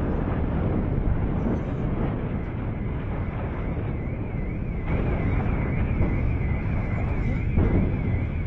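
Low, steady rumble hanging over the city in the wake of an airstrike explosion. From about four seconds in, a high warbling tone rises and falls rapidly above it.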